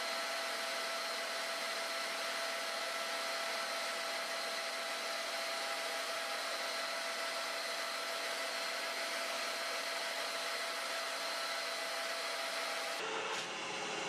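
Metal lathe running steadily while a twist drill in the tailstock drill chuck is fed into the end of a spinning steel part: an even mechanical hum with a few steady whine tones. The sound changes abruptly about a second before the end.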